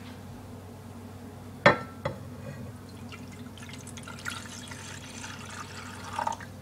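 Two sharp knocks about two seconds in, the first much louder, then water is poured from a glass measuring cup for about three seconds, splashing most near the end.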